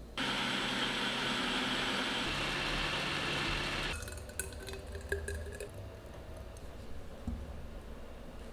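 A blender motor runs steadily for about four seconds and then stops. After that a thick drink is poured from the blender jar into a glass bottle, with a few small glass clicks.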